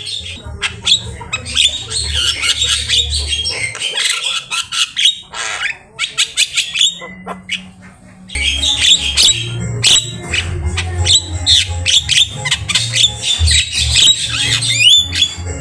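Javan myna (jalak kebo) singing a fast, varied run of harsh squawks, chirps and whistles, with a short lull about halfway through. A low steady hum runs beneath it.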